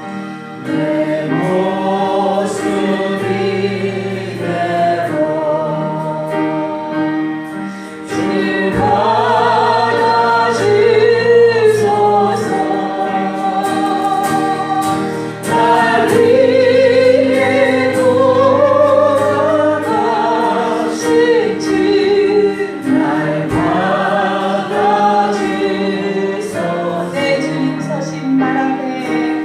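Congregation singing a Korean gospel praise song in chorus, with instrumental accompaniment holding steady low notes under the voices.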